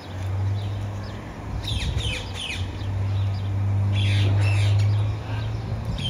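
Rose-ringed parakeets giving short, quick falling chirps in two bursts, about two seconds in and again about four seconds in. A steady low hum of unclear source runs underneath.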